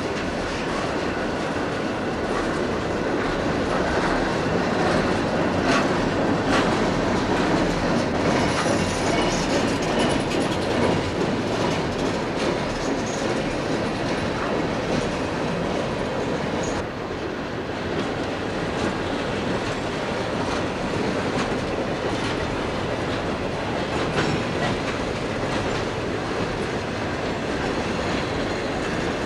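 Railroad cars of a passing train rolling by: a steady rumble of steel wheels on rail with clickety-clack over the joints and a couple of sharp clanks about six seconds in.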